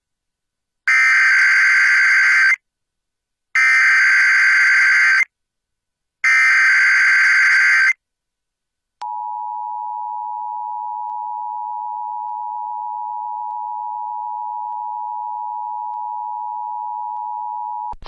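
Emergency Alert System Required Monthly Test tones: three identical bursts of screechy digital SAME header data, each under two seconds, then the steady two-tone EAS attention signal, which starts about nine seconds in and lasts about nine seconds.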